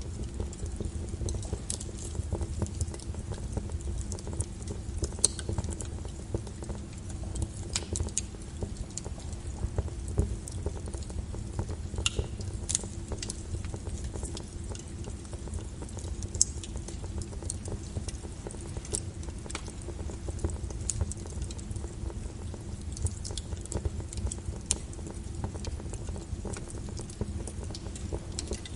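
Wood fire burning in a fireplace: a steady low roar of flame with irregular crackles and sharp pops from the burning wood throughout.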